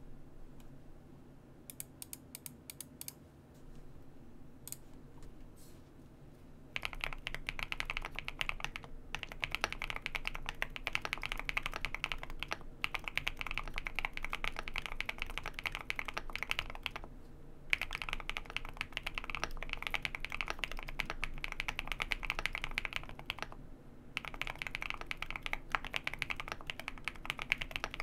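Typing on a Wind Studio Wind X98 keyboard with JWK Hoshizora linear switches, lubed with Krytox 205/105 and filmed. There are a few scattered keystrokes at first, then fast continuous typing starts about a quarter of the way in, with a few short pauses. These switches are known for fairly noticeable contact noise despite a smooth feel.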